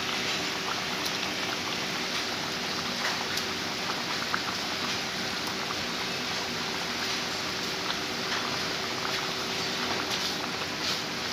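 Fish curry simmering in an aluminium kadai on a gas stove: a steady bubbling hiss with scattered small pops.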